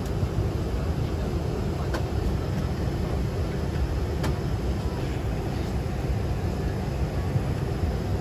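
Steady low rumble inside a Boeing 777-300ER's cabin as the airliner is pushed back, engines not yet started. Two faint clicks about 2 and 4 seconds in.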